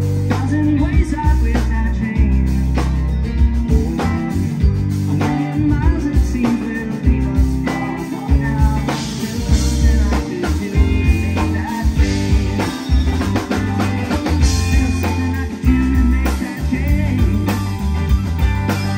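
Live rock band playing: electric guitars, keyboard and drum kit over a steady beat with a heavy low end.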